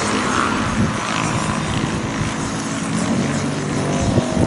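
Wind blowing across the microphone, a steady rushing rumble, over a low, steady engine-like hum.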